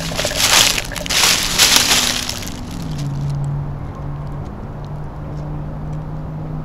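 Dry leaves and brush crunching and rustling in several loud bursts over the first two and a half seconds, then a steady low hum.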